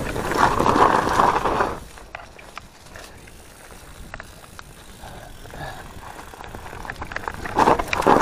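Mountain bike riding down a dirt forest trail: tyres rolling over the ground and the bike rattling and clicking over bumps. Louder for the first two seconds and again near the end, quieter in between with scattered clicks.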